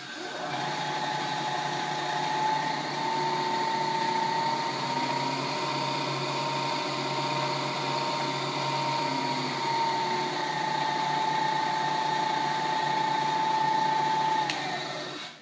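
Clausing-Kondia FV-1 vertical mill's variable-speed head running with the spindle in back gear, a steady mechanical whine with one clear high tone. It stops near the end when the head is switched off.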